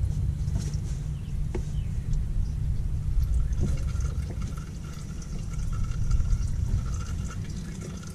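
Engine oil draining in a steady stream from the open drain-plug hole of a 2010 Dodge Charger 3.5 V6's oil pan into a drain pan.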